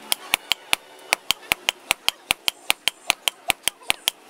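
Hammer striking hot leaf-spring steel on an anvil in quick, even blows, about six a second, each with a bright metallic ring.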